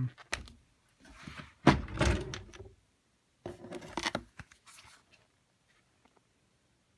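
Handling noises: a few clunks and knocks with rustling and rattling, the loudest clunk about two seconds in, dying away after about five seconds.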